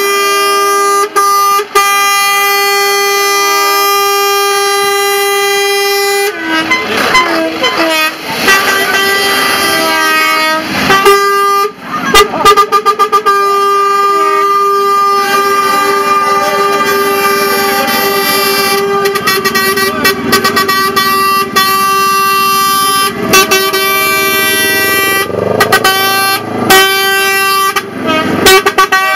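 Truck air horns sounding in long held blasts, several notes together in a chord, broken by a few short gaps.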